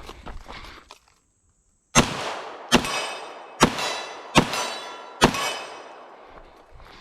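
Canik TP9 SFX 9mm pistol firing five shots at a steady pace, about one every 0.8 seconds, each followed by a short echo. Before the shots there are light clicks, then a moment of silence.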